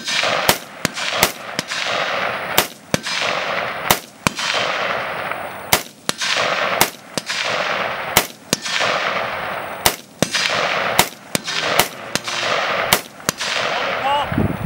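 A firearm fired rapidly, about two dozen shots in quick pairs and short runs with brief pauses between, each shot followed by a long rolling echo.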